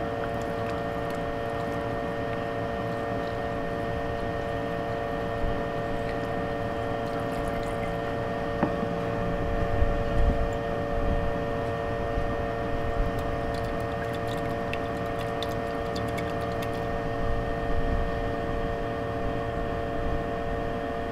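Rinse liquid poured off silver powder from one glass beaker into another near the end, with a few light clicks of handling before it. A steady hum with several fixed tones runs underneath.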